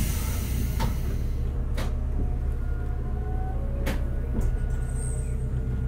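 Interior running sound of a Hakodate City Tram 3000-series streetcar with a Toyo GTO VVVF inverter, under way between stops. A steady low rumble carries faint whining tones, broken by three or four sharp clicks from the wheels and track.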